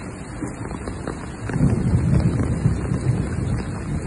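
Rain, with wind buffeting the microphone in a low rumble that grows louder about a second and a half in.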